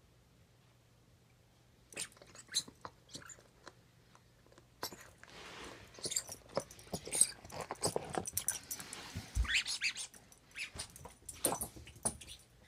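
Small dog chewing and gnawing on a toy, with irregular clicks and crunches that start about two seconds in.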